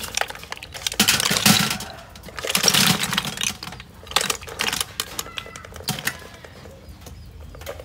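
Hot cooking water poured from a metal pot splashes into a stainless steel tray in two surges. Then, from about four seconds in, boiled snail shells slide out and clatter onto the metal tray as rapid clicks.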